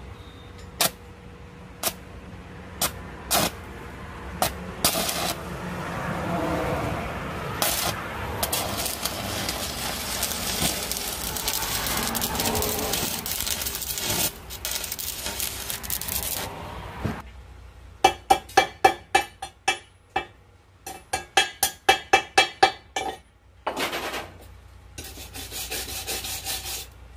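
Hand work on steel: a stretch of scraping, then two quick runs of sharp, ringing metal strikes, about four a second.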